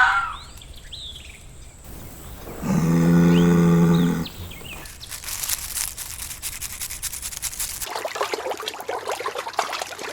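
An animal's single long, low call about three seconds in, held steady for about a second and a half; scratchy clattering noise follows through the rest.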